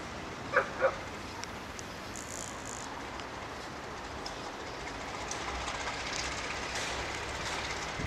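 Distant ALCo RSD-16 diesel locomotive hauling a loaded freight train, a steady rumble that grows a little louder after about five seconds. A dog barks twice about half a second in.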